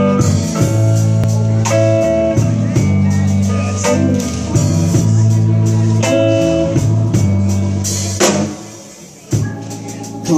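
Live band playing an instrumental intro on electric guitars, drums and keyboard. About eight seconds in, a drum hit is followed by a brief stop before the band comes back in.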